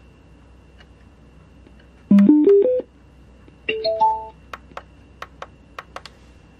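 Astronord wall-mounted CD player sounding electronic prompt chimes as it is switched between modes: a quick rising run of five notes about two seconds in, then a short three-note chime about a second and a half later. Light clicks of its top-panel buttons being pressed fall between and after the chimes.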